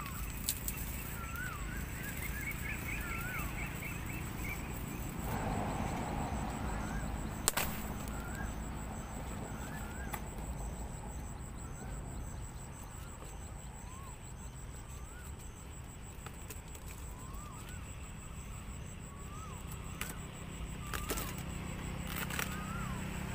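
Rustling and a few sharp clicks from a frog trap being set in a ditch and covered with leaves and grass, loudest about five to seven seconds in. A bird calls over it, short rising-then-falling chirps every second or two, with a quick run of notes a few seconds in.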